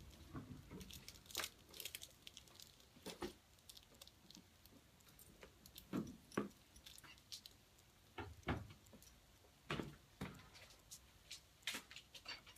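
Scattered small clicks and faint rustles of hands fiddling with a small wrapped item, over quiet room tone.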